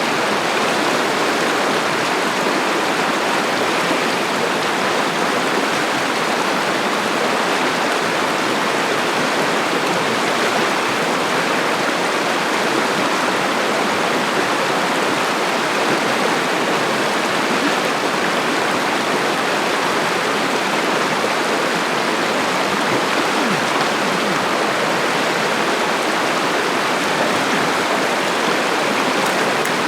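River water running over rocks: a steady, loud, even rush with no breaks.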